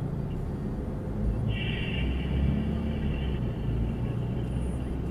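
Low engine and road rumble of an Isuzu D-Max pickup heard from inside the cabin as it pulls away from a standstill in slow traffic, growing stronger about a second and a half in. A high tone lasts for about two seconds in the middle.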